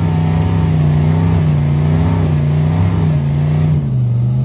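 Engine of a lifted Jeep Wrangler rock crawler running under throttle as it crawls up a rock ledge, its pitch rising and falling with the throttle, then dropping lower near the end as the driver eases off.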